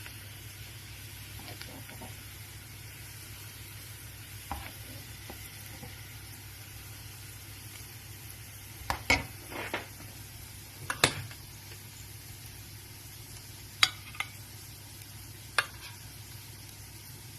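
Hot fried potatoes still sizzling faintly in a nonstick pan as they are served out. Several sharp clinks of a utensil against the pan and plate come and go, the loudest about eleven seconds in.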